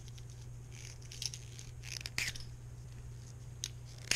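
Hands fitting cork rings and tape onto a fishing rod handle: a few short, scattered scraping and clicking noises over a steady low hum.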